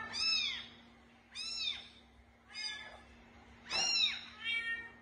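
Kitten mewing: five short, high-pitched cries about a second apart, each rising and then falling in pitch.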